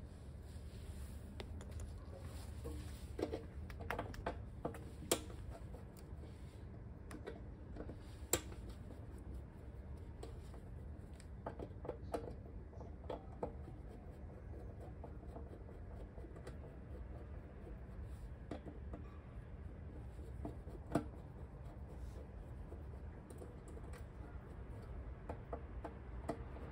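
Hands working at a motorcycle's fuel petcock: scattered small clicks and scratching of parts being handled, with a few sharper taps, over a low steady hum.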